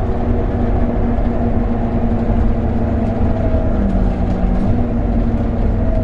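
Scania N270UD double-decker bus's five-cylinder diesel engine running steadily, heard from inside the passenger saloon: a deep rumble under a steady hum, with a lower tone joining briefly about four seconds in.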